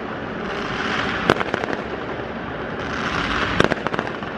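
Fireworks display going off: a steady crackling hiss, with two sharp bangs, one about a second in and one near the end, each followed by a short run of crackles.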